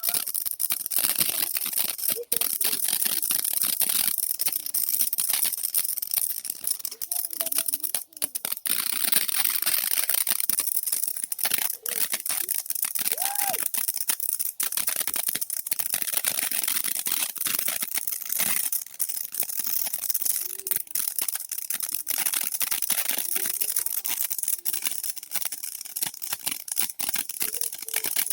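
Firework fizzing with a dense, steady crackle of rapid pops over a high hiss.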